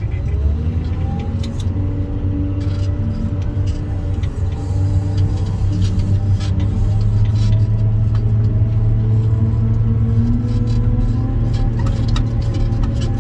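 Wheel loader's diesel engine heard from inside the cab, running steadily under load as the machine carries a full raised bucket. The engine grows a little louder about five seconds in and holds there.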